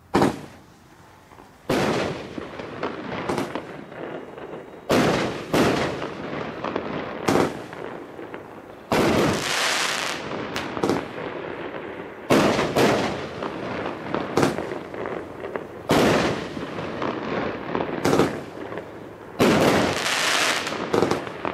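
An 18-shot, 200-gram consumer fireworks cake firing in sequence: the first shot goes off right at the start, then sharp reports and bursts follow about every one to two seconds, with dense crackling noise between them.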